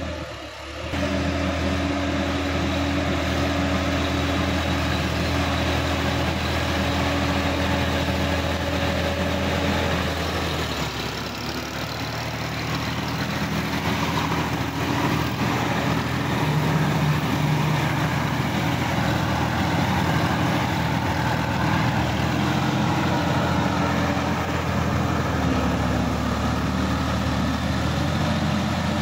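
Sonalika DI-50 RX tractor's diesel engine running steadily while it pulls a rotary tiller through wet paddy mud. The engine gets louder about a second in, and its note shifts about ten seconds in.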